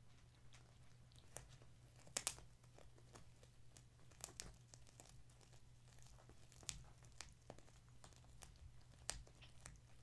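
Scattered small clicks and crinkles as kittens move about on blankets and toys, the sharpest a quick cluster about two seconds in, over a steady low hum.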